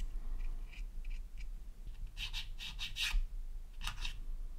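Light scratching and rubbing strokes of a small applicator worked over a plastic scale-model undercarriage leg during weathering, a few strokes a second, with a quick run of stronger scratches around the middle and one more near the end, over a low steady hum.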